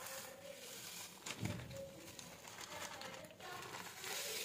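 Clear plastic zip-lock bag crinkling as crushed biscuit crumbs are shaken out of it into a bowl, with a single dull knock about one and a half seconds in.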